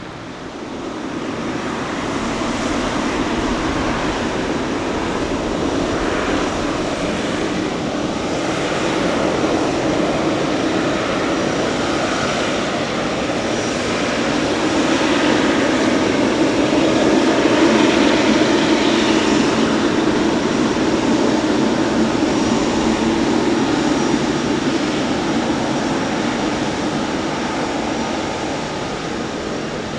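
Jet airliner engines running, a steady rumble that swells to its loudest about halfway through and then slowly fades.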